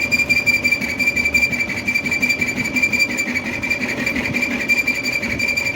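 Lathe boring a hard steel bush for an excavator hydraulic hammer, with the cutting tool giving a steady high-pitched whine over the running machine.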